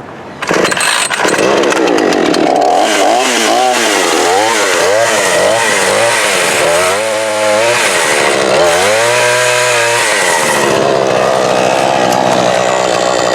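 A chainsaw starts up about half a second in, revs up and down over and over, then runs steadily at high speed near the end.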